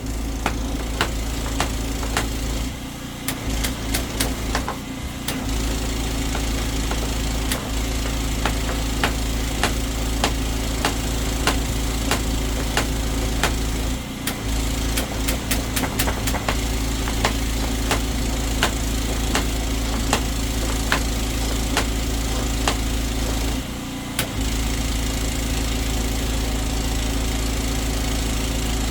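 Engine-driven drain-clearing machine running steadily, with frequent light ticks and rattles. Its level dips briefly a few times as the trigger is worked against a root blockage in the pipe that still gives heavy resistance.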